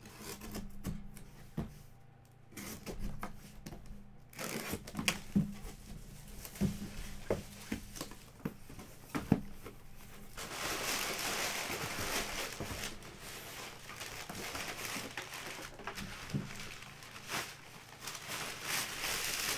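Handling and opening of a shrink-wrapped cardboard box, with scattered taps and rustles, then from about ten seconds in a continuous crinkling of crumpled kraft packing paper being pulled out of the box.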